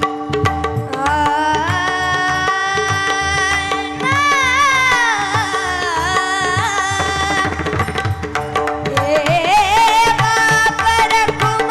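Marathi devotional bhajan music: a tabla beat under a steady held drone, with a sung melody drawn out in long, ornamented notes with vibrato that rise and fall about four seconds in and again near the end.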